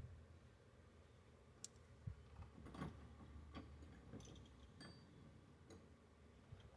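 Near silence broken by faint, irregular clicks and light taps, about seven of them spread over a few seconds.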